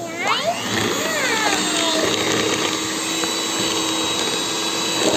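Electric hand mixer running steadily, its motor humming as it beats pancake batter.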